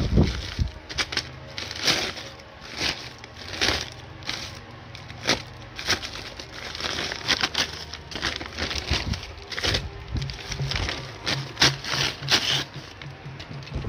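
Brown paper sack and clear plastic wrapping crinkling and rustling as they are pulled open by hand, in irregular crackles and crumples.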